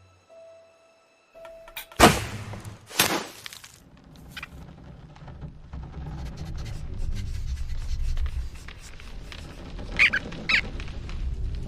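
Cartoon sound effects: two loud crashes about a second apart, then a low rumbling noise that builds steadily, with two sharp hits near the end.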